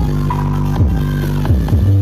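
Loud electronic dance music with a heavy bass line and deep kick drums that drop in pitch, a little more than one a second, with a synth melody above. It is played through a large carnival sound system that is being tested.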